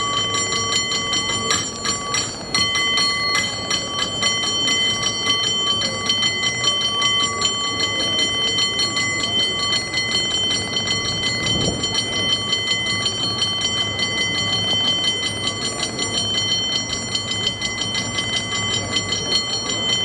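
San Francisco cable car bell rung in a fast, continuous rhythmic pattern: a contest-style bell-ringing performance. Rapid strokes keep its ringing tones sounding without a break.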